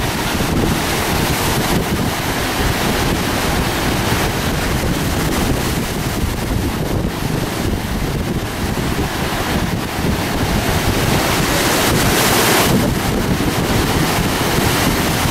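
Heavy surf breaking and churning along the shore, with strong wind buffeting the microphone. A louder surge of water comes about twelve seconds in.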